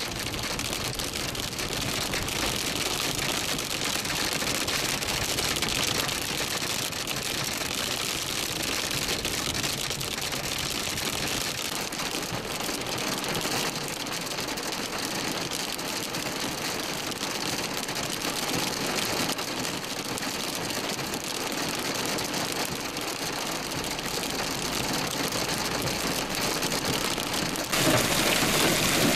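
Hail and heavy rain pelting a moving car, a dense steady patter of many small hits on the roof and windshield. Near the end it switches to a louder, fuller downpour.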